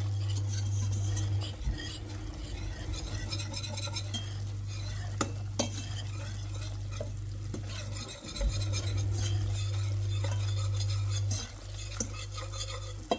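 Wire whisk stirring flour and onion frying in olive oil in a saucepan, with a light sizzle and the whisk scraping and now and then tapping against the pan: the roux is being cooked through. A steady low hum runs underneath, stronger at times.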